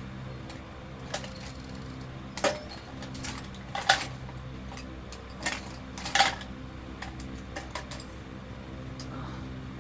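Irregular sharp clicks and knocks of small plastic containers and caps being handled and worked at, loudest about four and six seconds in, over a faint steady low hum.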